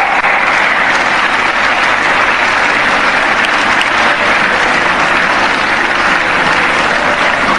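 Large congregation applauding, a dense, steady clapping.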